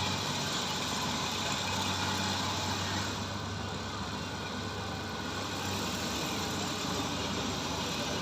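Combine harvester running steadily: a constant low engine hum under a continuous wash of machinery noise.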